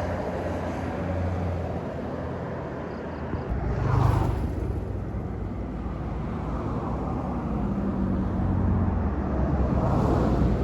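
Roadside traffic: engines running, with a vehicle passing by about four seconds in and another approaching near the end.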